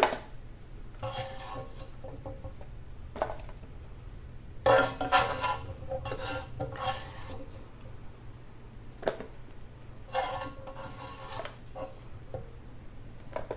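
A kitchen utensil scraping and clinking against a pan while glazed baby carrots are transferred into a small tin. The sound comes in several separate bouts of clattering with single knocks between them.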